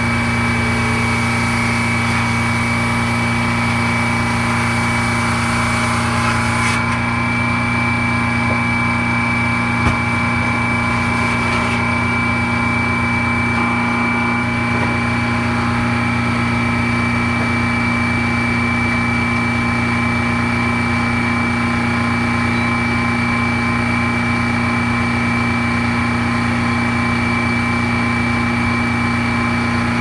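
Belt-driven Frick circular sawmill running steadily, its big saw blade and drive pulleys spinning with a constant low hum and a high whine. One sharp knock about ten seconds in.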